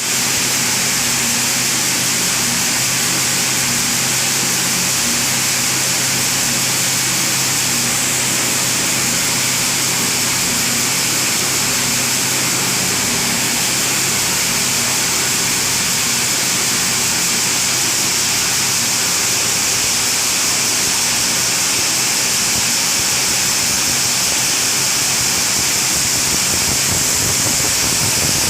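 Cattle feed plant machinery running: a steady, loud, unbroken noise of motors and a feed grinder, with a low hum that fades in the second half.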